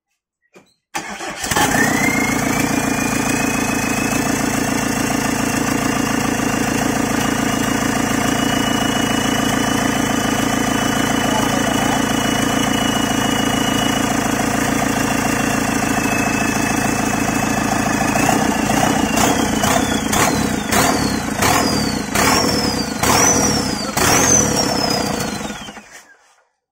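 A freshly fitted JCB Bharat Stage III diesel engine, test-run on a stand, catches about a second in and runs loudly and steadily with a high whine. From about two-thirds of the way in it is revved in several quick blips, then it shuts down near the end.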